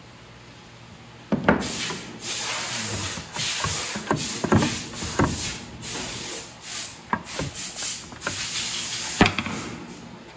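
Hammer striking a wooden window frame, knocking nails into the joint: a run of sharp knocks at uneven intervals, starting about a second in, with the hardest blows at the start and near the end.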